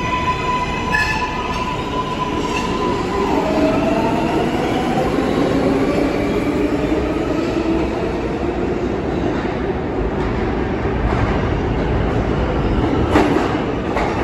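New York City subway trains in a station: an R143 train pulls out with its electric motor whine, whose tones slide lower after a few seconds, over a continuous rumble of steel wheels on rails as a second L train comes in on the near track. A single loud clank about 13 seconds in.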